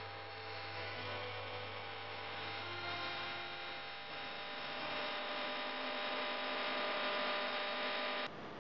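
A steady, buzzing hum with many overtones that breaks off abruptly near the end.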